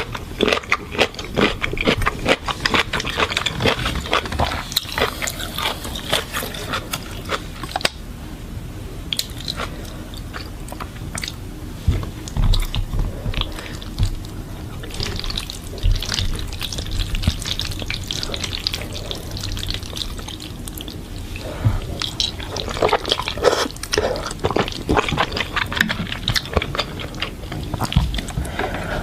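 Wet eating sounds of instant noodles: slurping and chewing with many small mouth clicks, busiest at the start and again near the end.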